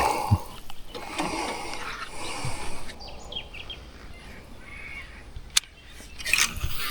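Outdoor ambience on open water with faint bird calls, and a single sharp click a little past halfway.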